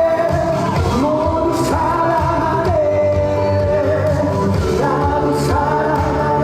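Trot medley performed live: a male singer holding long notes over a backing track with a steady beat.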